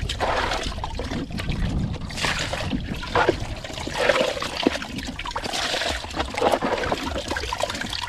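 Water splashing and trickling as a plastic scoop dips into a boat's fish hold and lifts fish out, water running off the scoop, in uneven surges.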